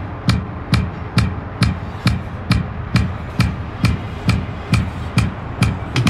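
A steady drum beat, a little over two beats a second. Each beat has a low thump and a sharp click, and it keeps perfectly even time.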